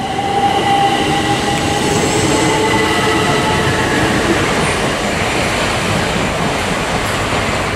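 Southeastern Class 375 Electrostar electric train running past the platform: a steady rumble and rush of wheels on rail. A humming whine fades out about a second in.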